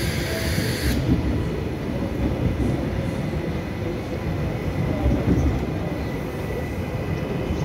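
TransPennine Express Class 397 electric multiple unit running past on the station tracks: a steady low rumble of wheels on rails. A high hiss above it cuts off about a second in.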